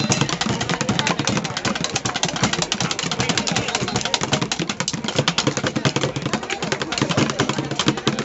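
Street drumming on plastic buckets: a fast, dense stream of strokes that carries on without a break.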